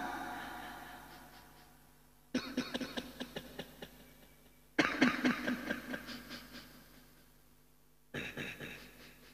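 The echo of the last recited phrase fades away, then a man coughs and clears his throat three times through a microphone and PA, each bout a quick run of rasps that rings on in the hall.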